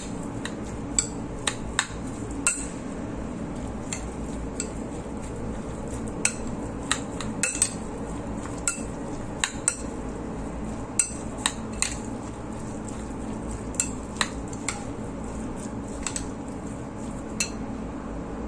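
Metal spoon stirring a wet minced-meat and vegetable spring roll filling in a ceramic bowl, clinking against the bowl's side in irregular clicks, over a steady low hum.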